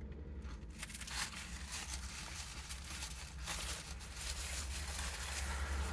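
Chewing on ftira sandwiches and the rustle of a paper napkin, soft and irregular, over a steady low hum.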